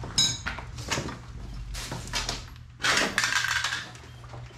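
A paintbrush working fiberglass resin onto fiberglass mat: a few scratchy brush strokes and light knocks, the loudest about three seconds in, over a steady low hum.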